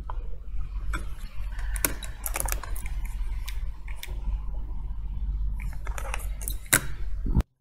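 Small clicks, taps and rustles of hands handling an iPhone and its parts on a plastic repair holder, over a steady low hum. The sound cuts off abruptly near the end.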